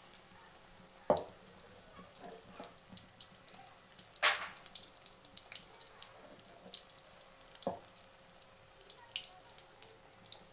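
Battered onion bajji deep-frying in hot oil in an aluminium kadai: the oil crackles and spits continuously, with a few sharper cracks, the loudest about four seconds in.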